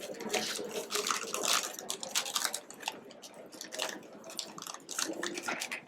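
A person chewing crunchy cheese curls close to the microphone: a dense run of crisp, irregular crunches and wet mouth clicks.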